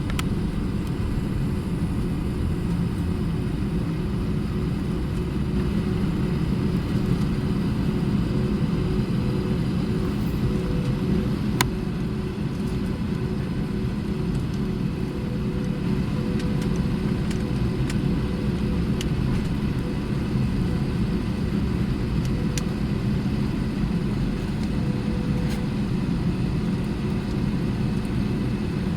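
Steady low rumble of an Airbus A320 heard from inside the cabin with its engines at idle, as before the takeoff run, with a faint steady hum over it. A single sharp click about twelve seconds in.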